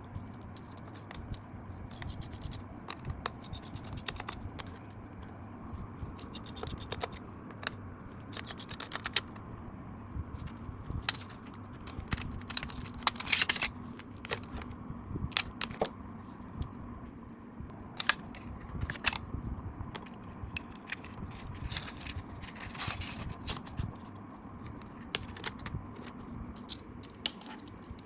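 Hands working on a laptop's casing and parts with small tools: irregular sharp plastic-and-metal clicks and taps, with short scraping and scratching stretches. A steady low hum sits underneath.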